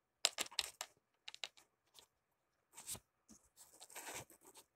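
A run of sharp clicks, then scattered clicks and rustling, as a hand fiddles with something close to the microphone.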